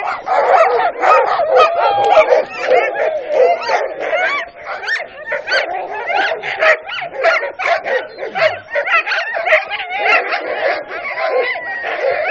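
A pack of sled dogs barking and yelping all at once in a continuous din of overlapping voices: the excited clamour of a team eager to run before the sled sets off.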